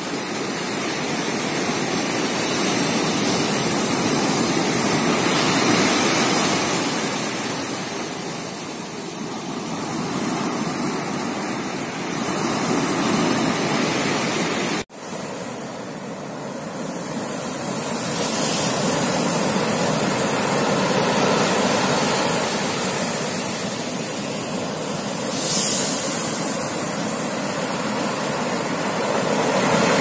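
Strong sea waves breaking close by and washing up a coarse-sand beach, a steady surf noise that swells and eases every several seconds. About halfway through, the sound cuts out for an instant.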